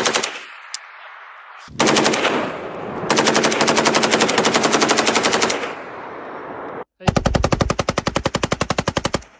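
AK-47 in 7.62×39 firing fully automatic bursts of exploding tracer rounds, about ten shots a second. A burst ends just as it begins, a long one starts about two seconds in and lasts nearly four seconds, and another comes near the end.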